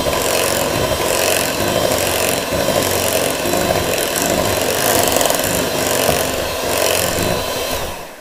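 Electric hand mixer running, its beaters churning thick chocolate cake batter in a bowl; the motor stops near the end.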